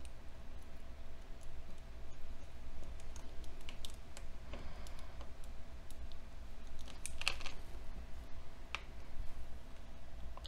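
Small plastic clicks and scrapes from a 2 mm flathead screwdriver prying the clips out of a Lego 9V train wire connector: a few scattered clicks, a short scrape about four and a half seconds in, and a quick bunch of clicks about seven seconds in, over a faint steady hum.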